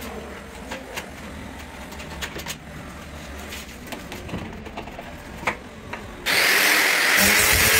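Hand blade scraper scratching and clicking as it scrapes excess adhesive off the seam of a black granite countertop. About six seconds in, an electric angle grinder starts abruptly and runs loud and steady.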